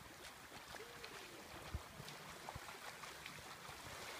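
Faint, steady wash of small waves lapping at the shallow water's edge, with a faint distant voice about a second in and a single low thump a little under two seconds in.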